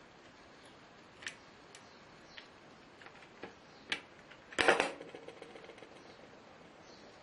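Scattered light clicks and taps of small parts being handled, with a louder short clatter about four and a half seconds in.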